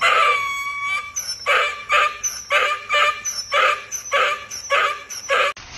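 Donkey braying: one long held note, then a run of about eight short, even calls, roughly two a second, that stops abruptly near the end.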